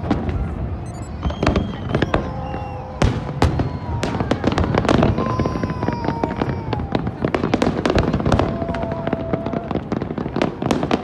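Aerial fireworks bursting in quick succession: many sharp bangs and crackles overlapping, with no break.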